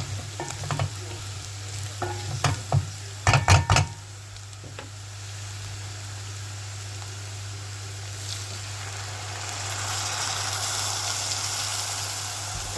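Cubed pumpkin frying in butter with shallots and garlic in a pan. For the first few seconds a utensil stirs and knocks against the pan; then a steady sizzle takes over and grows louder about eight seconds in, over a low steady hum.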